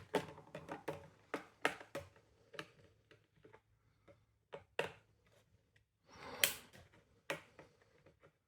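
Irregular clicks and knocks of hard plastic parts of a window vacuum cleaner being handled and fitted together, with a short scraping rustle about six and a half seconds in.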